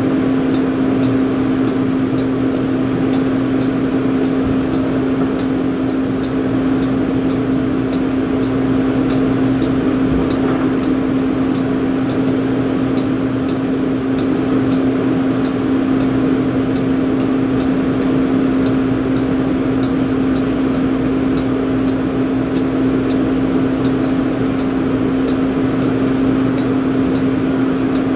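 Drilling rig floor machinery running: a steady, loud mechanical hum with a constant low tone and faint, evenly spaced ticking over it.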